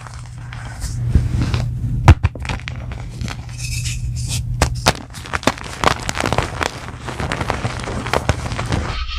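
Soft gym chalk blocks being crushed by hand, crumbling with a dense run of crisp crackles and sharper snaps, louder about two seconds in and again between five and six seconds. A low steady hum runs underneath.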